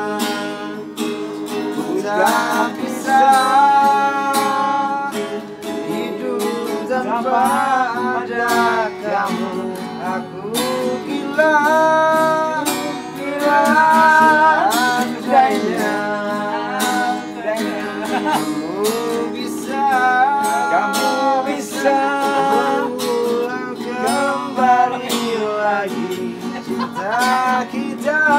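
A man singing a slow song and accompanying himself on an acoustic guitar. The voice and guitar run on without a break.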